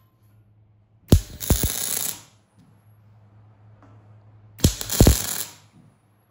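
Two short MIG welding tacks on structural steel, each about a second of crackling arc starting with a sharp strike, about three seconds apart, over a steady low electrical hum.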